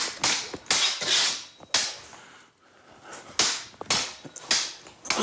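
Metal sword blades clashing in a mock sword fight, a series of sharp clangs with short ringing tails and a pause of about a second midway.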